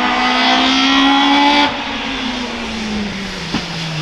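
A hill-climb race car's engine runs hard with its pitch rising, then cuts off abruptly about two seconds in as the car passes and lifts off. The engine note then falls away steadily, and a short click comes near the end.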